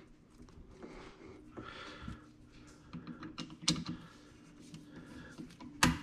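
A 5/16-inch nut driver working the screw of a hose clamp on a dishwasher hose to loosen it: light, scattered metal clicks and scrapes, with two sharper clicks, one in the middle and one near the end.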